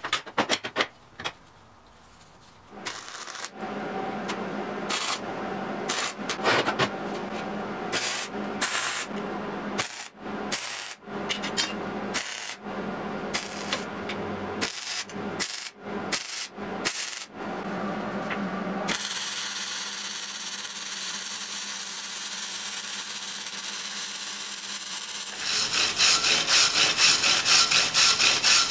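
Hand wire brush scrubbing flux-core welds on steel, cleaning off slag and spatter. The sound is broken up by cuts, with a stretch of steady hissing past the middle, and turns into loud, fast back-and-forth strokes near the end.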